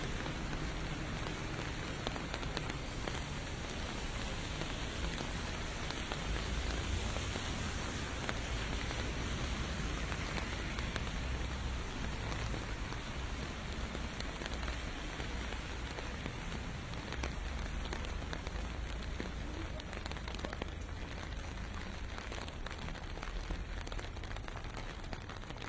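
Steady rain pelting on pavement, with a low rumble of distant traffic underneath that swells and fades.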